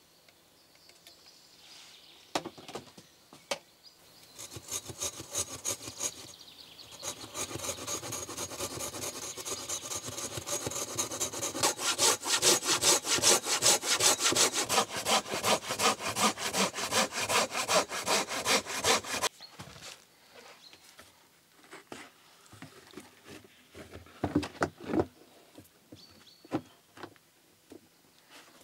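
Hand saw cutting wood in quick, even back-and-forth strokes. It starts about five seconds in, gets louder about twelve seconds in, and stops abruptly about nineteen seconds in, leaving a few light knocks of handling.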